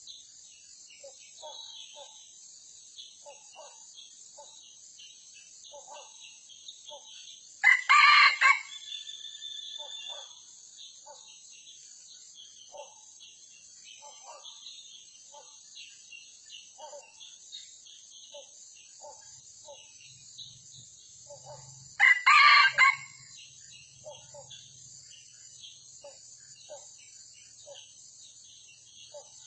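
Red junglefowl rooster crowing twice, each crow short, about a second long, with about fourteen seconds between them. Soft short calls come about once a second in between, over a steady high insect buzz.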